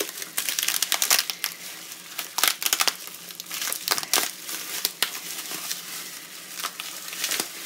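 Plastic bubble wrap being pulled off a packed item and crumpled by hand: an irregular run of sharp crinkling crackles.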